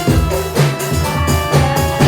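Live jaranan music: a steady drum beat with held melodic tones over it.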